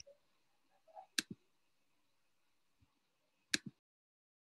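Two quick pairs of sharp clicks over faint room tone coming through a video call, one about a second in and one near the end. Right after the second pair the audio cuts off suddenly to dead silence as the recording stops.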